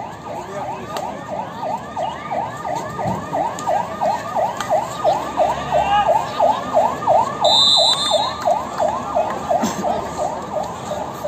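A kabaddi raider's continuous cant, "kabaddi, kabaddi" repeated fast, about four times a second, over crowd noise. It grows louder in the middle, and a brief high whistle-like note sounds about seven and a half seconds in.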